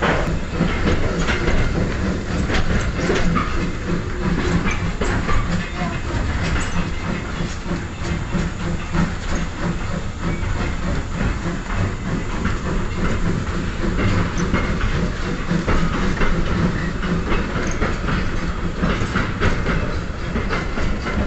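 Small steam train running, heard from its carriage: a steady rumble with the wheels clicking and clattering over the rail joints.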